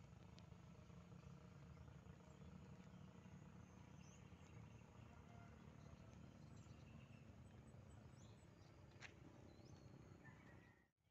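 Near silence: faint outdoor background of a low steady rumble, with a few faint, brief bird chirps and a single click.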